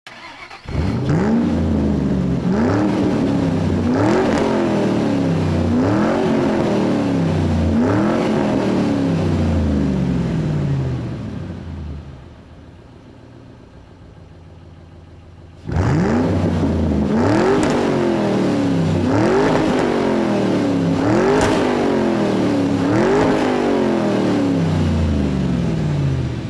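Engine revving over and over: each rev climbs quickly in pitch and then falls away, about every one and a half seconds. It goes quiet for about four seconds midway, then starts abruptly and repeats the same rev pattern.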